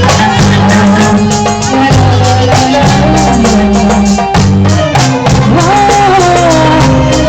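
Loud music: a melodic line over a steady percussive beat.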